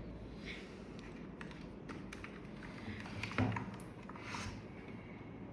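Scattered light clicks and taps from handling a Keychron K4 V2 mechanical keyboard while switching it on, with one louder knock about three and a half seconds in.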